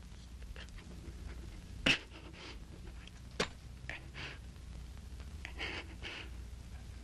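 Film soundtrack sound effects over a low hum: two sharp hits about a second and a half apart, then several short breathy bursts.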